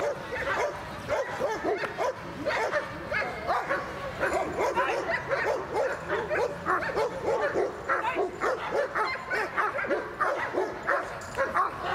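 German shepherd barking in a fast, unbroken series at a helper's bite sleeve during protection work, about three barks a second.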